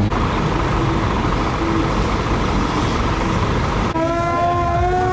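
Heavy-vehicle noise, a loud steady rumble with no clear pitch. About four seconds in it cuts abruptly to a long, steady held tone.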